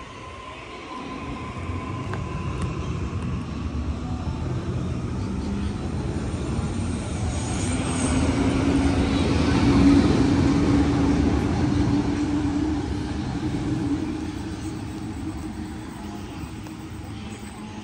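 Waratah A-set electric train departing the platform: its running sound builds, peaks about ten seconds in with a steady low hum, then fades as it pulls away.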